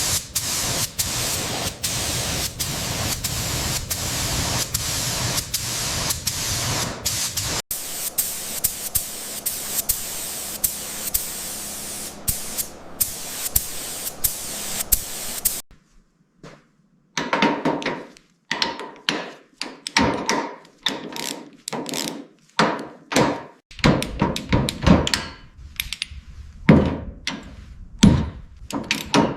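Workshop tool noise: a steady, loud rushing noise with regular clicks about twice a second for roughly fifteen seconds. After a brief silence comes a run of irregular knocks and clunks, like hammering on the workpiece.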